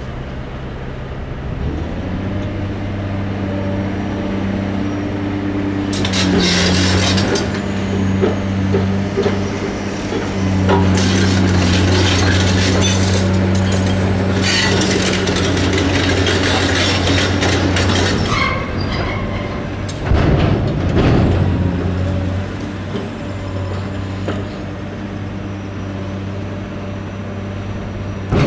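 Volvo FH 540 truck's diesel engine pulling away under the load of a full hooklift container of scrap metal, with a steady hum that grows louder about two seconds in. Loud bursts of hiss and clatter come and go over it, around six seconds in and from about eleven to eighteen seconds.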